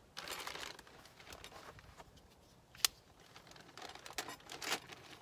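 Hands handling parts and a plastic bag: irregular rustling and crinkling with scattered light clicks, and one sharp click a little under three seconds in.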